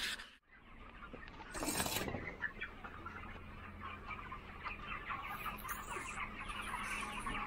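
A large flock of broiler chickens clucking and cheeping continuously, many overlapping short calls. A brief rustling noise comes about two seconds in.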